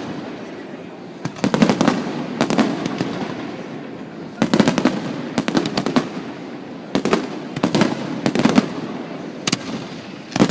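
Fireworks going off in rapid clusters of sharp cracks and bangs, a new volley every second or two over a steady crackling background.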